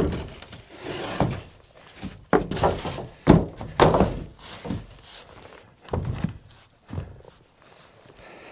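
Wooden roof panels of a portable panel cabin being set in place and knocked home: a series of separate thunks and knocks, the loudest about three seconds in.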